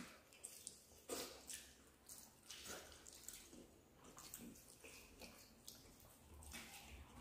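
Faint, wet eating sounds of rice and curry eaten by hand: irregular mouth smacks, chewing and squelches.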